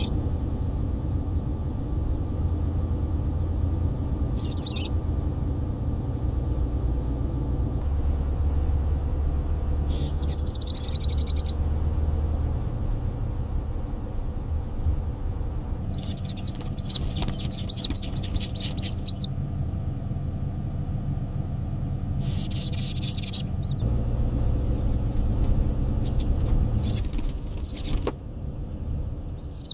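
Goldfinch chirping in several separate bursts of rapid, high calls over a steady low rumble.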